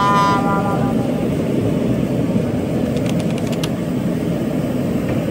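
Steady busy-street din of traffic and people, with a brief raised voice at the start and a few light clicks about three seconds in.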